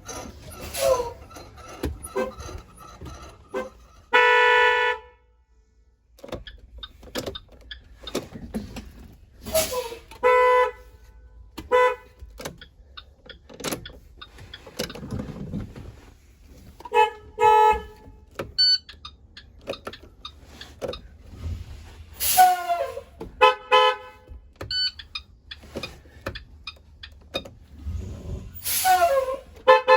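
School bus electric horns sounding in short honks, about seven over the stretch, the first and loudest held almost a second. Sharp clicks and brief bursts of hiss come in between the honks.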